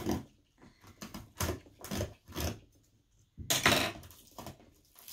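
Scissors cutting the strings tied around a cardboard box, with the box being handled: a series of short snips and knocks, then a louder, longer scrape about three and a half seconds in.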